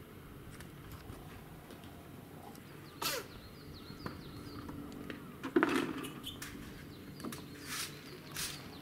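Outdoor ambience with a steady low hum, a run of faint small bird chirps a little over three seconds in, and several short noisy sounds, the loudest a little past halfway.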